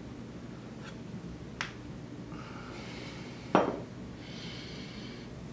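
Glassware knocks as a brown glass beer bottle and a pint glass are handled after a pour: a light clink about a second and a half in, then a louder glassy clunk with a short ring a couple of seconds later.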